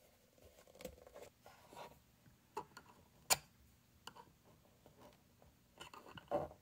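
Small clicks and taps of plastic headphone hinge parts being handled and fitted together, with one sharp click about three seconds in.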